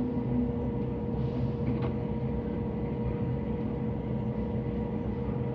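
Steady rumble and constant electrical hum inside a Southern electric passenger train, with a faint click about two seconds in.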